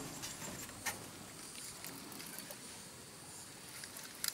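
Quiet background with a faint steady hiss, one click about a second in, and a quick run of sharp clicks near the end as a spinning rod and reel are picked up and handled.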